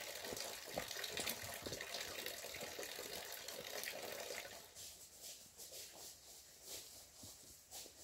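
Water running and splashing, growing quieter after about four and a half seconds and leaving scattered small knocks and clicks.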